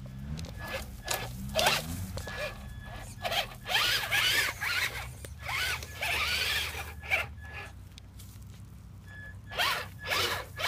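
Electric RC monster truck's motor whining in short bursts of throttle, about six in ten seconds, the whine rising and falling in pitch with each burst.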